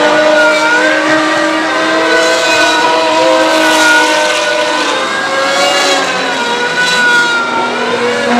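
Racing car engine running at high revs, a sustained note that dips and climbs again in pitch a few times as it changes speed.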